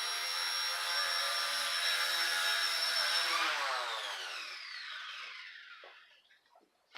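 XK K110 Blast micro RC helicopter's electric motors and rotors whining at a steady high pitch, then spooling down: the pitch falls and fades out over the last few seconds as the throttle is cut.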